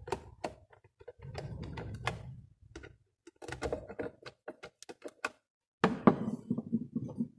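Hands fastening hardware on a small box: irregular knocks, clicks and small clatters of a tool, a nut and parts against the housing and a wooden workbench, with handling rumble between them.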